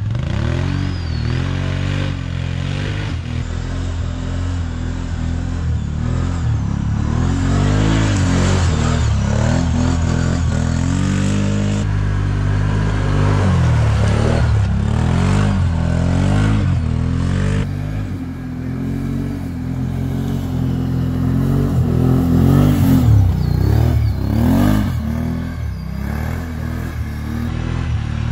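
ATV engines revving hard and easing off again and again under load on a steep dirt climb, the engine note rising and falling every second or two.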